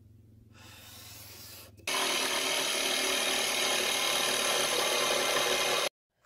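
A light scraping on wood, then a corded electric jigsaw starts abruptly about two seconds in and runs steadily, cutting through a pine board for about four seconds before the sound cuts off suddenly.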